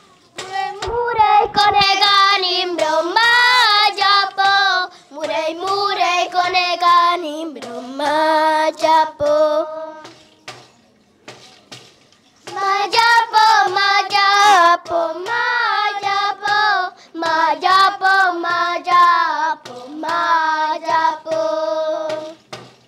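A group of children singing a song together in unison, in sung phrases, with a pause of about two seconds roughly ten seconds in before the singing resumes.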